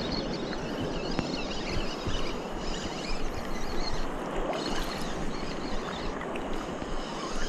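Steady wash of small waves at the shoreline, with wind on the microphone.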